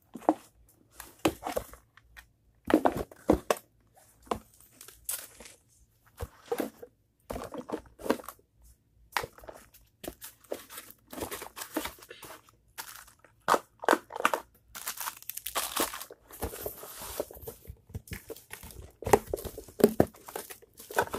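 Paper and cardboard being handled: an instruction sheet and a cardboard box crinkling and rustling, with irregular knocks and taps as things are moved about in the box. A longer rustle comes about two thirds of the way through.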